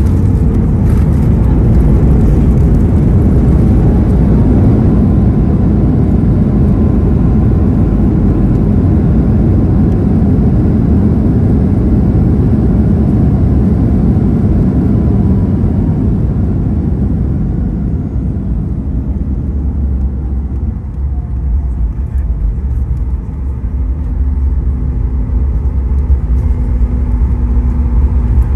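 Boeing 737 MAX 8's CFM LEAP-1B engines and landing-gear rumble heard from inside the cabin during the landing rollout: a loud, steady roar that eases off about two-thirds through as the jet slows, then a steadier engine hum as it turns off the runway to taxi.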